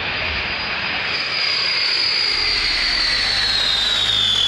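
Boeing C-135-family four-engine jet on approach with gear down, passing low overhead. Its engines give a steady roar with a high whine; the sound grows louder about a second in, and the whine drops in pitch near the end as the aircraft goes by.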